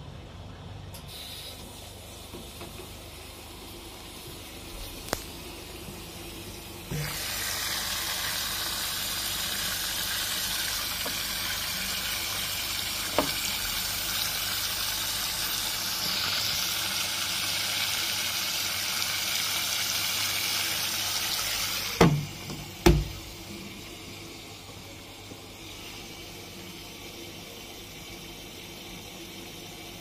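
Water rushing into a Wyss Mirella Universal 2000 washing machine through its top detergent dispenser, a loud steady hiss that starts suddenly about a quarter of the way in and stops about two-thirds in with two sharp knocks; before and after, a quieter steady hum.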